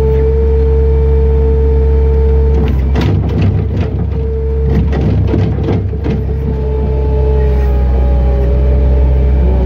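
Loader engine running steadily with a steady whine. From about three to six seconds in comes a cluster of metal clanks and rattles as the loader bucket and arm move.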